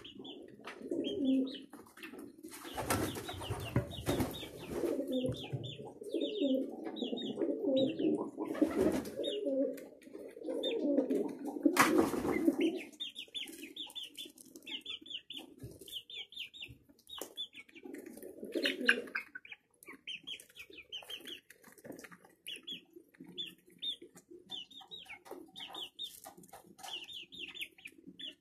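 Domestic pigeons cooing, a low pulsing coo that runs through the first half and returns briefly later, with wings flapping about three seconds in and again near the middle. Short high chirps repeat about twice a second throughout.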